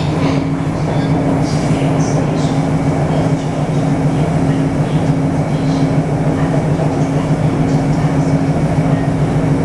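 Taipei Metro C301 train with retrofitted propulsion, running along the track with its rail and running noise. Its inverter gives a steady low hum in two tones, the higher one pulsing on and off. This is the abnormal inverter noise of this retrofitted train.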